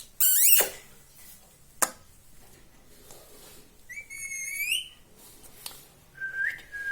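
Indian ringneck parrot giving shrill calls: a loud one near the start and a rising call about four seconds in, then a thin steady whistle near the end.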